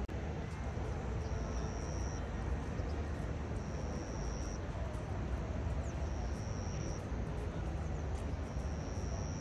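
Steady outdoor background noise with a low rumble. A thin, high tone about a second long repeats about every two and a half seconds, four times.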